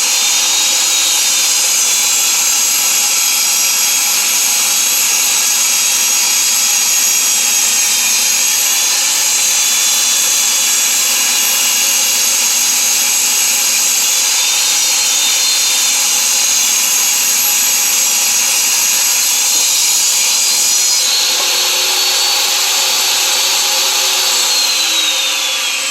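Table saw ripping a board to width. The blade's high whine dips and recovers as the wood feeds through, and near the end the saw is switched off and its pitch falls as the blade winds down.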